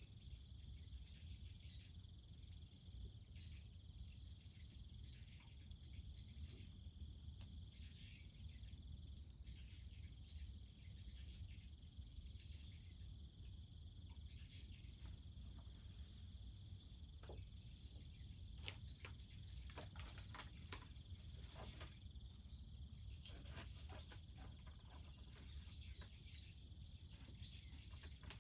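Faint rural outdoor ambience: a steady high-pitched insect drone over a low rumble, with scattered short clicks and small chirps, thickest about two thirds of the way through.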